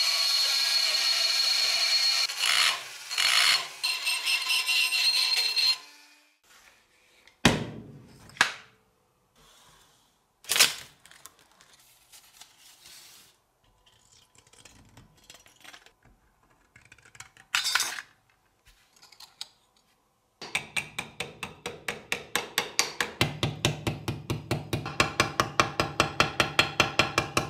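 A rotary tool with a carbide burr grinding rust from inside a small tinplate boiler, a steady high whine for about six seconds. Then a few sharp single snips of scissors cutting thin copper sheet. From about twenty seconds in comes a run of rhythmic rasping strokes on the metal sheet, about three or four a second.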